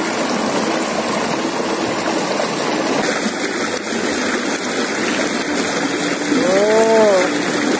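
Shallow river rushing steadily over and between boulders. Near the end comes one short voice-like sound that rises and falls in pitch.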